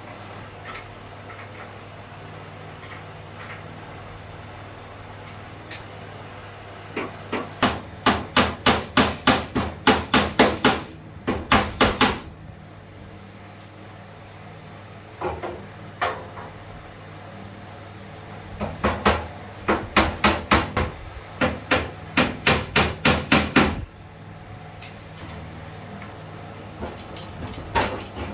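Hammer striking on the sewing machine's table in two runs of quick, even blows, about three a second, each run lasting a few seconds. A couple of single knocks fall between the runs, over a low steady hum.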